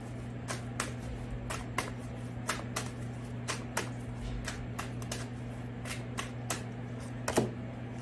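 Tarot cards shuffled by hand: a run of light, sharp card clicks about two a second, often in pairs, with a couple of louder snaps near the end.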